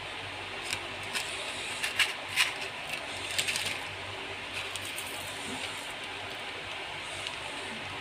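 Liquid simmering in a pan around a block of instant noodles: a steady hiss with scattered crackles and pops, thickest about two to four seconds in.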